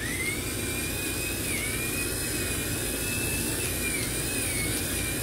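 Electric pepper mill grinding black pepper: its small motor switches on abruptly and runs with a steady high whine that wavers slightly, over a hiss of grinding.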